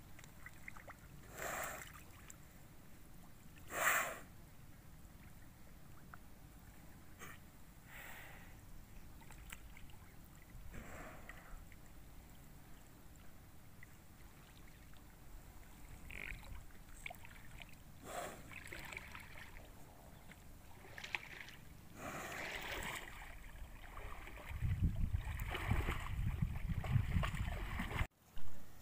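Water buffalo bathing in a pond, with a dozen or so short splashes of water. A low rumble runs through the last few seconds, then cuts off suddenly.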